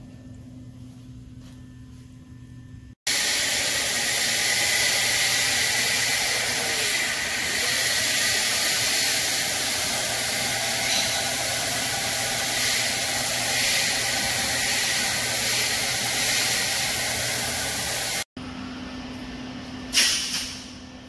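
A loud, steady hiss like rushing air, starting and cutting off abruptly, with low shop hum before and after it and one sharp clank near the end.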